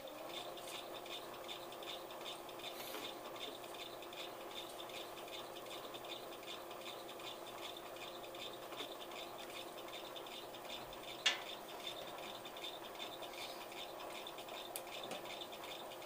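Bridgeport milling machine spindle turning a large hole saw as it cuts a hole in the enclosure, a steady machine hum with a fast, even scratchy rasp from the cut. A single sharp click about two thirds of the way through.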